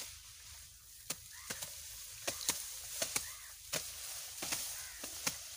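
Short-handled blade chopping through green fodder grass stalks near the ground: about a dozen sharp, irregularly spaced strikes over a faint rustling hiss.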